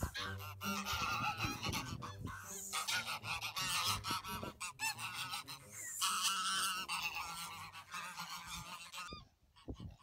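Flock of domestic geese honking over and over in a noisy clamour, which stops about nine seconds in.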